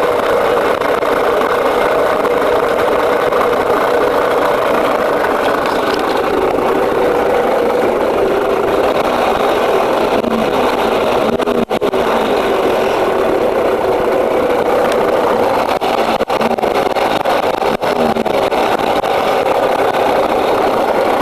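Zündapp engine running steadily with a rattling noise.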